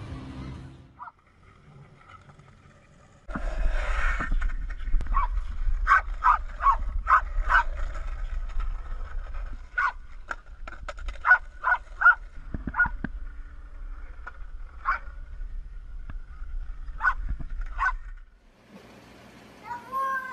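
Small terrier yipping in quick, short, high barks that come in clusters, over a low steady rumble. A cat meows right at the end.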